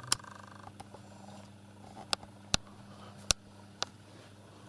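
Handling noise from a handheld camera being moved: about five sharp, separate clicks and knocks over a steady low hum.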